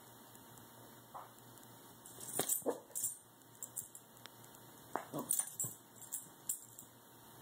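Shih Tzu mix puppy giving short yips with falling pitch during play, in two bursts: about two seconds in, and again around five to six and a half seconds in.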